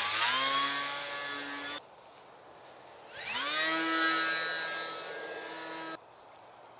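Electric motor and propeller of a 1.4 m electric RC sailplane running at high power in two spells during the launch climb. It whines steadily and cuts off at about two seconds in; it starts again a second later with a rising whine, holds, and stops abruptly at about six seconds.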